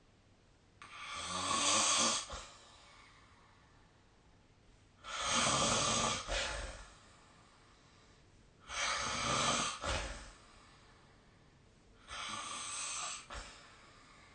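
A sleeping person snoring: four snores about three and a half seconds apart, each lasting a second or so and cutting off abruptly.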